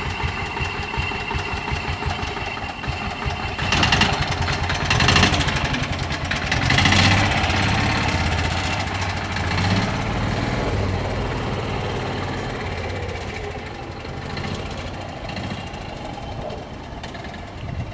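A 1989 Club Car golf car's gas engine turns over with a rapid low pulsing and catches about four seconds in. It revs up twice, then settles into a steady low chug that slowly gets quieter.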